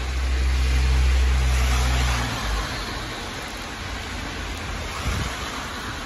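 Heavy rain hissing steadily on a wet street as cars pass. A low engine rumble swells over the first two seconds and stops abruptly.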